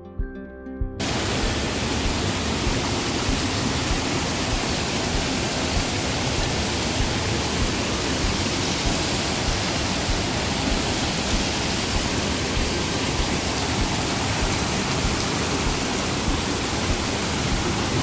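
Background music cuts off about a second in, replaced by the loud, steady rush of a waterfall cascading over rocks.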